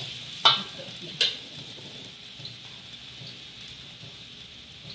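Diced potato filling frying in a wok, with a steady sizzle. A spatula knocks sharply against the wok twice in the first second or so as it is stirred.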